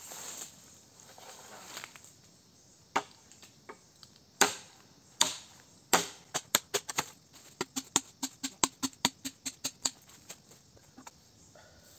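A blade chopping bamboo: a few hard strikes a second or so apart, then a quick run of lighter cuts, about three or four a second, ending near the end.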